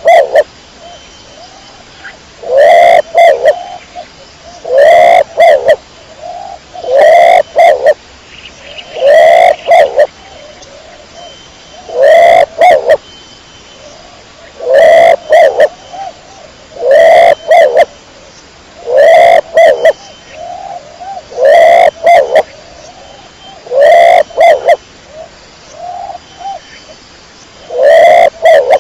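Domestic pigeon cooing over and over: a loud coo about every two seconds, with softer short coos in between.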